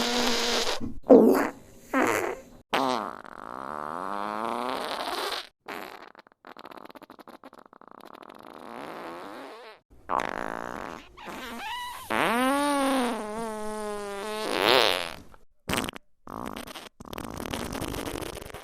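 A string of fart sound effects, one after another: short sputtering blasts and longer drawn-out ones, some with a pitch that slides up and then down.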